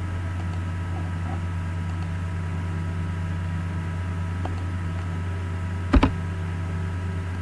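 Steady low electrical hum with faint high steady tones, and two quick clicks close together about six seconds in, mouse clicks made while working the computer.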